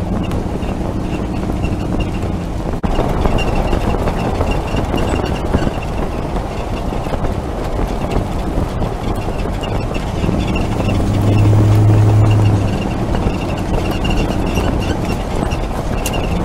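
2004 Dodge Ram 1500 driving, heard close to its front wheel: steady tyre and road noise with a faint high squeak repeating at an even rhythm. The owner, having replaced the front brakes and shocks to cure the squeaking, thinks it comes from the back. A low hum swells for about two seconds past the middle.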